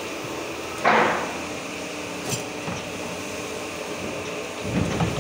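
A single loud metallic clank about a second in, ringing briefly, then a few lighter knocks and some low thumps near the end, over a steady background hum.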